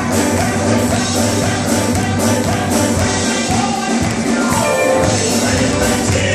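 Male Southern gospel quartet singing live into microphones, backed by a band of drums, keyboard and guitar keeping a steady beat.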